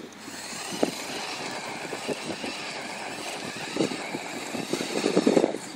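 Arrma Granite 1/10 electric RC monster truck spinning at full throttle on dusty concrete: a steady motor whine with tyres scrubbing and grit clicking, growing louder near the end.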